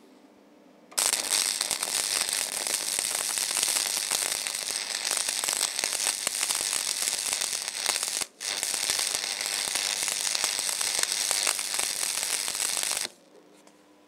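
Stick (MMA) arc welding with a 2.4 mm 6013 rod, laying a build-up pad. The arc strikes about a second in and runs with a dense, rapid crackle, cuts out for a moment about two-thirds through and restrikes, then stops shortly before the end.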